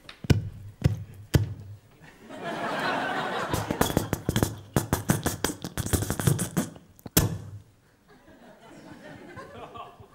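Handheld stage microphone being knocked and its ball grille twisted off the handle: sharp thumps, then a fast run of rattling clicks and knocks through the PA, ending in one loud knock. Audience laughter comes in between.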